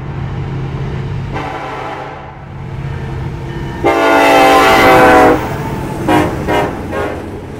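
Canadian National SD70M-2 diesel locomotive sounding its horn for a grade crossing as it passes: one blast about a second and a half in, a loud long blast about four seconds in as the locomotive goes by, then a few short toots, over the low rumble of the diesel engine.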